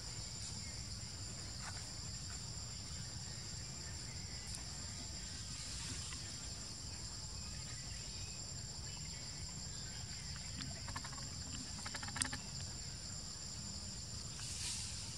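Steady high-pitched insect chorus, with one brief sharp click about four-fifths of the way through.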